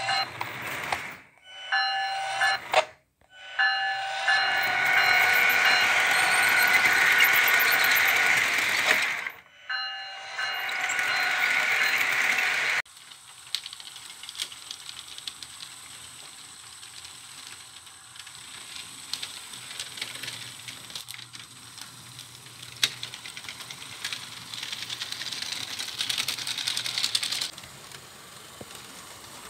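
Sound-equipped HO scale model diesel locomotive sounding its horn in four blasts, the third and longest about six seconds. The horn stops about thirteen seconds in, leaving a quieter steady hiss and rattle of the model trains running on the track.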